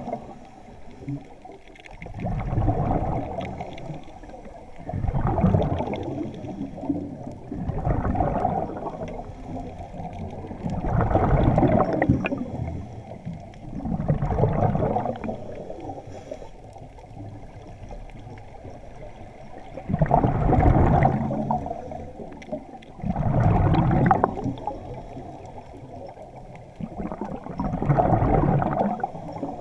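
Scuba diver's exhaled breath bubbling out of the regulator underwater, in bursts every few seconds, about nine in all, with quieter water noise between.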